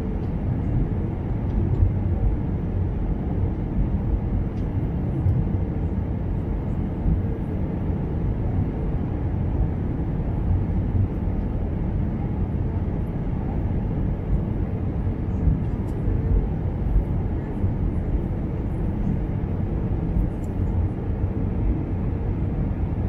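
Steady cabin noise of an Airbus A320-214 on approach, heard from a window seat over the wing: the CFM56 engines and the airflow over the extended flaps make an even, deep rumble.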